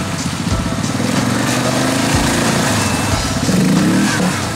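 Quad bike (ATV) engine being ridden through mud, its revs rising and falling several times, with a strong rev about a second before the end.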